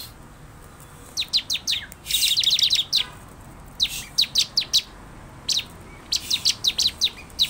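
Bar-winged prinia (ciblek) calling: rapid runs of sharp, high chips, each sweeping downward, in bursts with short pauses between, densest about two seconds in and near the end.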